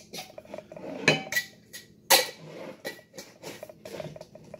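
Metal lids being screwed onto glass mason jars: metal-on-glass clinks, two sharp clacks about one and two seconds in, and smaller clicks and light rapid ticking as the lids are turned.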